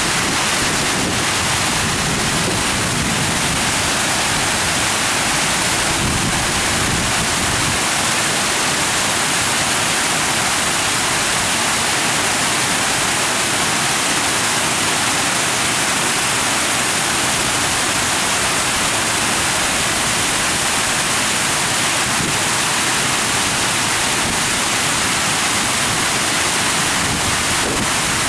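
A steady, even rushing hiss that never changes in level.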